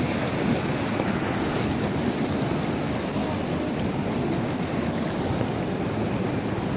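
Fast river rapids rushing steadily, an even wash of white water.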